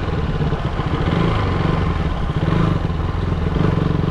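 KTM Duke 200's single-cylinder engine running at a steady pace while the motorcycle is ridden.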